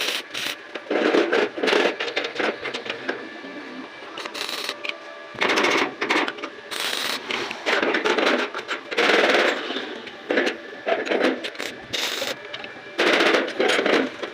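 Electric arc welding crackling and spattering in irregular bursts, the arc striking and stopping several times.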